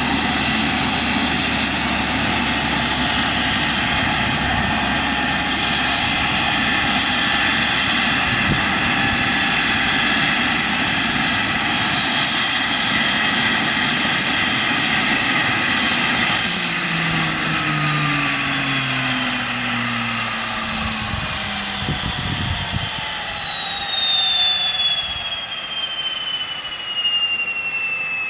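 Mosquito XET light helicopter's turbine running with a steady high whine, then about 16 seconds in the whine and the lower rotor tones start falling steadily in pitch: the turbine is spooling down after shutdown.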